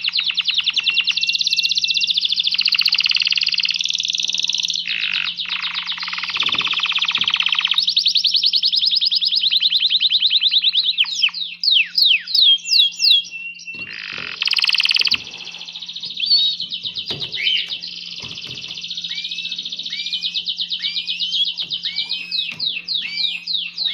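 Male domestic canary in breeding excitement singing its courtship song: long, very fast trills and rolling phrases that change every second or two, broken by short rising chirps.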